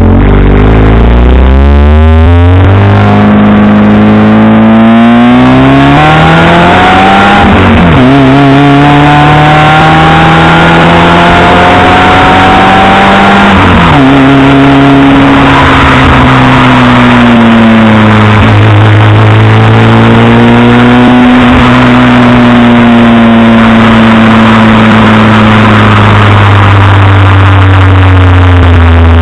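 Alfa Romeo 155's engine and exhaust under way, running loud. It pulls up through the gears, with the pitch climbing and then dropping sharply at a shift about 8 s and again about 14 s in. After that it eases off, with the pitch falling and holding fairly steady while cruising.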